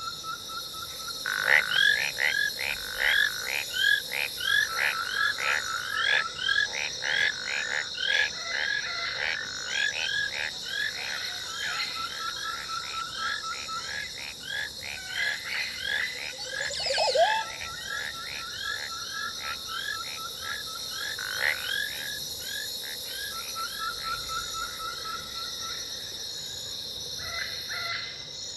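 Jungle ambience sound effect: a dense chorus of frog-like croaking calls, several a second, over a steady high insect drone, with quick trilling bursts. The croaking thins out after about 16 s, and about 17 s in a single loud call sweeps sharply upward.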